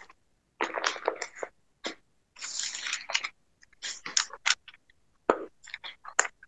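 Irregular short rustles and a few sharp clicks, separated by stretches of silence.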